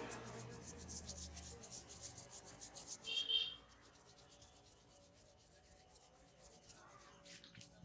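Hands rubbing quickly over a head of hair and skin in a massage: a rapid scratchy stroking that stops about three and a half seconds in. A short high squeak comes just before it stops.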